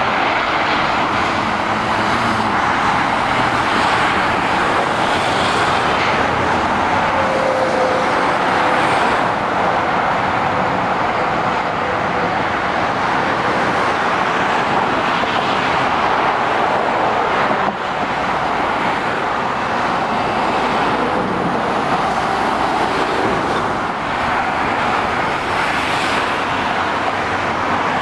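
Steady motorway traffic noise from lorries, cars and a coach passing: a continuous, even hiss of tyres on the road surface mixed with engine sound.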